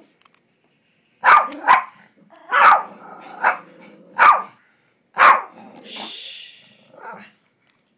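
Small terrier-type dogs barking sharply, about six barks between one and five and a half seconds in, with low growling under the middle barks, as they go after a mouse. A brief hiss follows about six seconds in.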